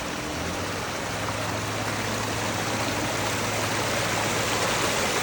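Water of a pondless waterfall spilling over rocks: a steady, even rush that grows slightly louder.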